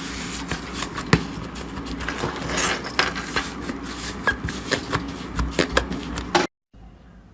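Slime being handled and squeezed, giving many small sticky clicks and crackles over a rustling noise. The sound cuts off suddenly about six and a half seconds in, and a much quieter, sparser stretch of faint clicks follows.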